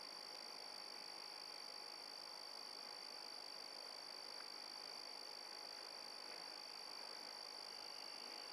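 Faint, steady, high-pitched night chorus of calling frogs or insects: one unbroken trill that holds the same pitch throughout.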